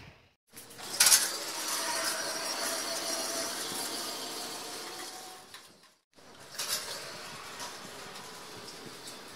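An aerosol can of WD-40 hissing as it is sprayed onto the metal hinge pivot of a swing gate, with a sharp spurt about a second in. After a sudden cut, the automatic swing gate's motor runs steadily as the gate opens.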